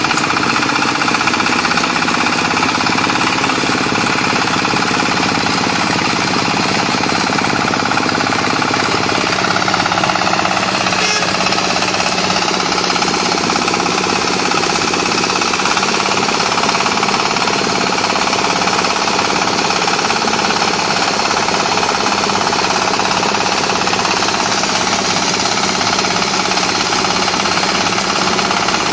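Small engine of a homemade crawler-tracked trencher running steadily under load while its cutter digs a furrow in sandy soil.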